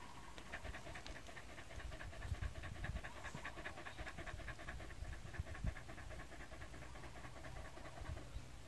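A dog panting quickly and steadily, with its mouth open and tongue out, along with a couple of soft low thumps.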